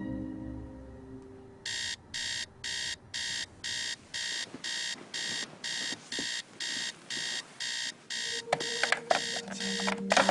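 Digital alarm clock beeping, about two short high beeps a second. Near the end the beeping stops and a few sharp knocks follow as a hand fumbles at the clock.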